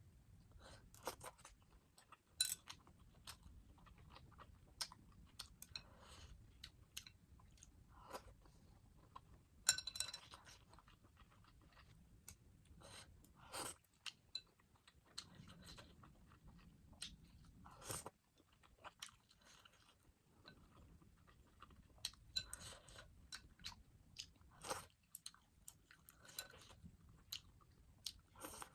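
A person chewing and biting into spicy ramen noodles and chicken sausages, with irregular short mouth clicks and smacks throughout.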